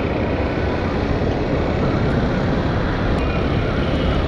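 Honda CB Hornet 160R single-cylinder motorcycle being ridden at steady speed: an even rush of wind and engine noise with a deep rumble on the rider's action-camera microphone.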